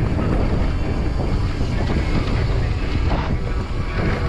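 Wind buffeting a bike-mounted camera's microphone, with the steady rumble and small knocks of a mountain bike rolling fast over a dirt trail.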